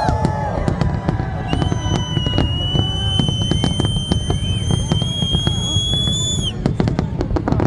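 Fireworks going off in a dense run of crackles and pops over a low rumble. A long high, steady whistle starts about one and a half seconds in and cuts off about a second before the end.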